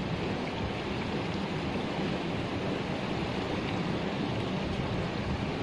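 Steady wind buffeting the microphone outdoors, a continuous low rumble and rush with no separate events.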